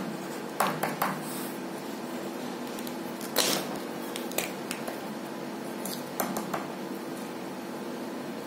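Scattered light taps, clicks and rustles of pens and paper being handled on a desk, the loudest a short rustle about three and a half seconds in, over a steady low hum.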